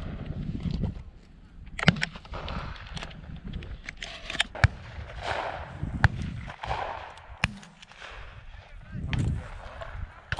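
Several scattered shotgun reports from hunters across the field, sharp and irregular, one to three seconds apart. Wind gusts and buffets the gun-mounted camera's microphone throughout.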